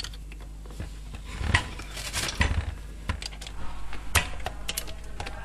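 Irregular small metallic clicks and clinks as a drill bit is fitted into an electric drill's chuck and the chuck is turned by hand.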